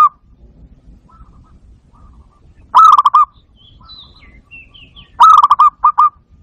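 Zebra dove (barred dove, 'bato-bato') calling: loud bursts of quick staccato cooing notes, one about three seconds in and a longer one, broken by short gaps, about five seconds in. Faint high chirps come between the two bursts.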